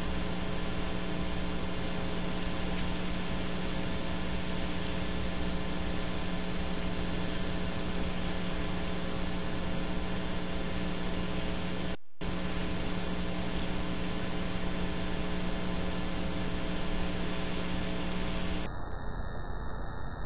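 Steady electrical hum with hiss on the recording, not any bird sound. It drops out for a split second about twelve seconds in, and near the end the hum stops, leaving a rougher hiss.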